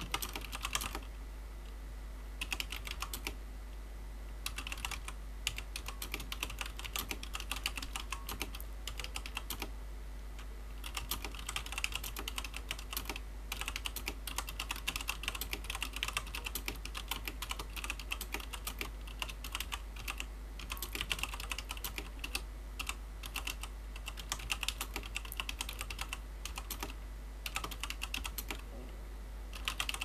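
Typing on a WASD Code v2 mechanical keyboard with Cherry MX Clear tactile, non-clicky switches, at about 50 words per minute: fast runs of key strokes broken by short pauses.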